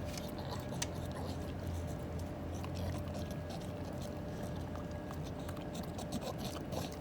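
An animal chomping on crunchy snacks: irregular crisp clicks of chewing and biting, over a faint steady hum.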